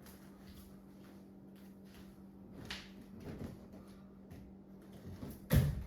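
Quiet room tone with a steady low hum, faint rustling and small clicks, and a short, louder knock or thump about five and a half seconds in.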